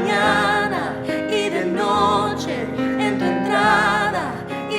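Live church worship music: a singer holding long notes with vibrato over steady band accompaniment.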